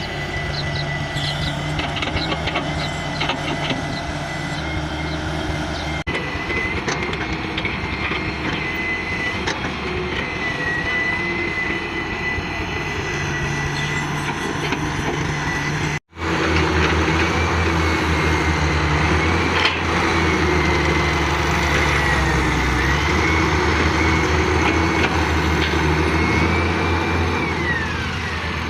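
Hitachi hydraulic excavator working, its diesel engine running steadily with a thin high whine over it. There are a few clicks early on. After an abrupt break about sixteen seconds in, the engine sound is louder and deeper, and near the end the whine drops in pitch.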